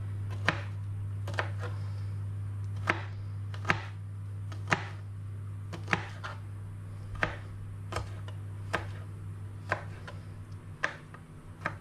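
Kitchen knife chopping garlic cloves on a plastic cutting board: about a dozen separate sharp knocks of the blade on the board, irregularly spaced at roughly one a second, over a steady low hum.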